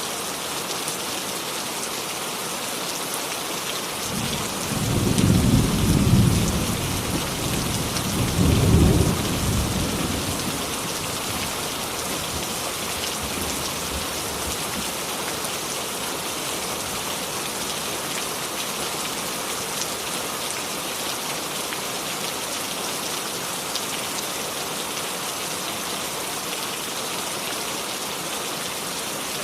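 Steady rain falling, an even hiss. About four seconds in, a low rolling rumble of thunder swells for some six seconds, peaking twice, then fades back under the rain.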